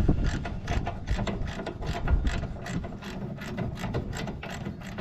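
Ratchet wrench clicking steadily, about four to five clicks a second, as a bolt is turned while the baler's slide bushings are fitted. A low steady hum runs underneath.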